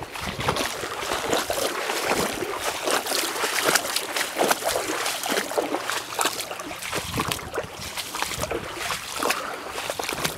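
Footsteps wading through shallow creek water: an irregular run of splashes and sloshes, one after another.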